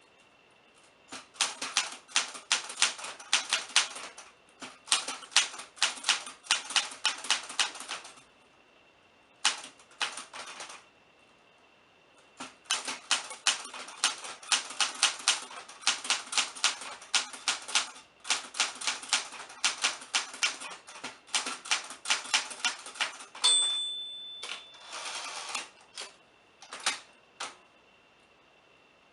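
Typewriter being typed on: runs of quick key strikes broken by short pauses. Near the end of the last run the margin bell rings once, followed by a rasp of about a second as the carriage is returned, then a few more strikes.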